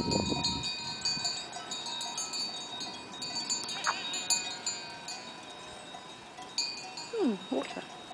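Many goat bells from a grazing herd, clinking and ringing continuously at several pitches, with goats bleating at the start, about four seconds in, and again near the end.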